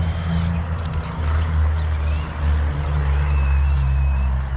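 A loud steady low rumble, with the faint high whine of an RC rock-crawler truck's electric motor rising and falling as it drives across concrete.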